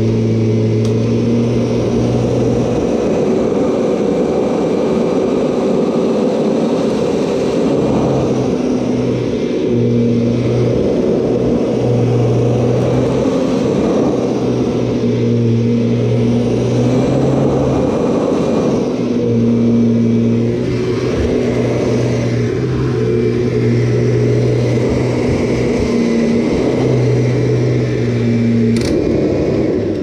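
Kirby G6 upright vacuum cleaner running steadily while sucking up wood shavings from carpet, its motor hum shifting in pitch now and then as the load on the nozzle changes. A single sharp click near the end.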